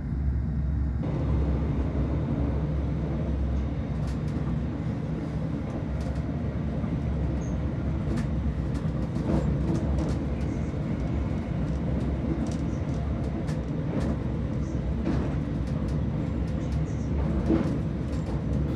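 Inside the passenger saloon of a ScotRail Class 385 (Hitachi AT200) electric multiple unit running at speed: a steady low rumble from the train, with scattered light clicks.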